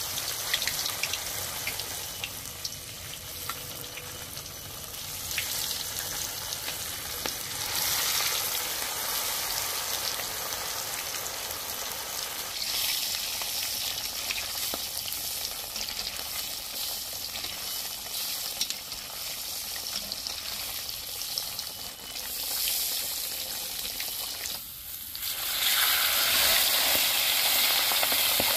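Chilli-marinated pork ribs frying in hot oil in a steel wok: a steady sizzle with fine crackling, louder near the end.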